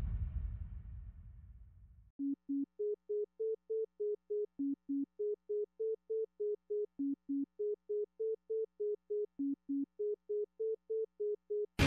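A knock and fading handling noise for the first two seconds, then an electronic beeping: short, evenly spaced tones about three a second on two pitches, mostly the higher one, with a pair of lower beeps every couple of seconds.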